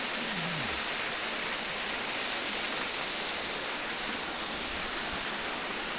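Rushing water of a mountain stream and waterfall, a steady even hiss.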